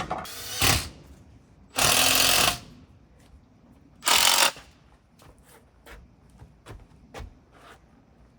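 Power saw cutting a piece of wood in three short bursts, the middle one the longest, followed by a few light knocks as the cut piece is handled.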